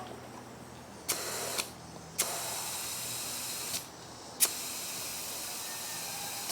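Compressed air hissing from an inflator into a fat bike tire in three bursts, each starting with a click of the trigger, the longest near the end, as the tire is brought up to about 20 psi.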